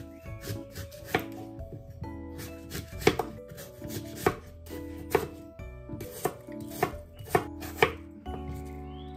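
Chef's knife cutting through an apple and knocking on a wooden cutting board, about eight sharp chops spaced a second or so apart, coming quicker near the end.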